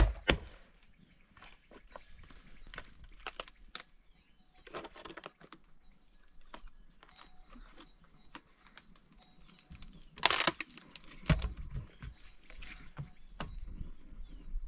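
Firewood being chopped and split with a hatchet on a log: irregular sharp wooden knocks and cracks, with a louder crackling split about ten seconds in followed by a few heavy thuds.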